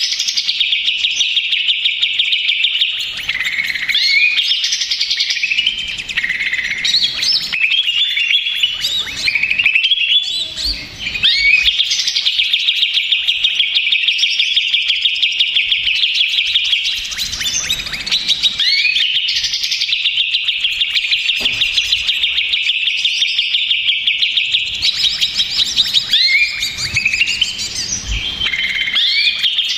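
Cucak ijo (greater green leafbird) singing without pause: a dense, noisy run of rapid trilled notes with quick rising and falling phrases mixed in. The song is the agitated, 'stressed' kind.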